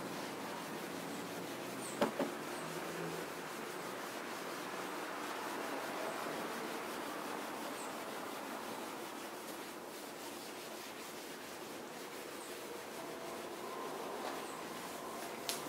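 Green scrubbing pad rubbed over car window glass, working an acid water-spot remover into a light foam to lift the stains. A sharp double knock comes about two seconds in, and a click near the end.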